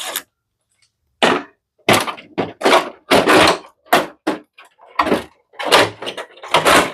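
Irregular knocks and clatter, about a dozen short, sharp noises, from air conditioner parts being handled and set down.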